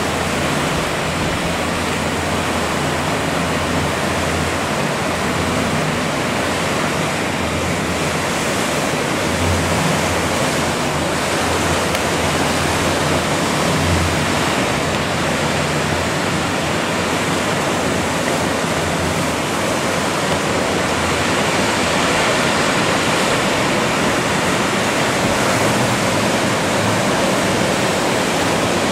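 Breaking ocean surf and churning white water: a steady, even rushing noise that goes on without a break.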